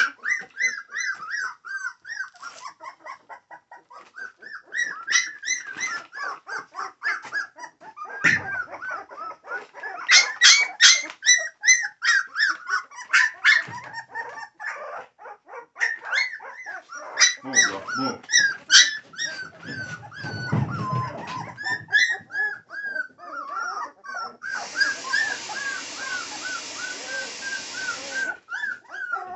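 A litter of young American Pit Bull Terrier puppies whining and crying, short high rising-and-falling whimpers one after another, with a run of sharp yips about ten seconds in. A steady hiss lasts about four seconds near the end.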